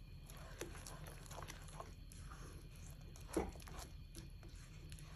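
A spatula stirring and scraping thick, wet egg halwa around a kadai: faint squelching and scraping strokes, with one louder scrape about three and a half seconds in.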